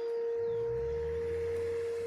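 Distant outdoor tornado warning siren sounding a single steady tone during a siren test. A low rumble joins it about half a second in.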